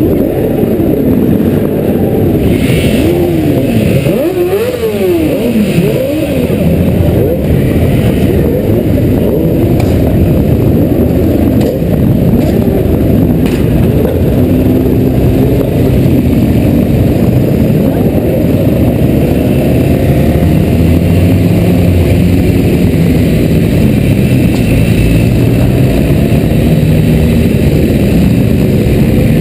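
Motorcycle engines running at low parade speed, heard close up from the rider's helmet, including the rider's own Yamaha XJ. A few seconds in, an engine revs up and down twice, then settles into a steadier run.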